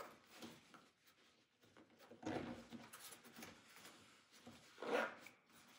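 Faint rustling and light scraping of cables being tucked into the mesh pockets of a nylon cable-organizer pouch, with a short louder rustle about five seconds in.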